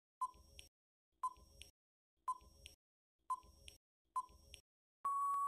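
Countdown timer sound effect: five short electronic beeps about a second apart, each followed by a faint click, then one longer steady beep near the end as the count runs out.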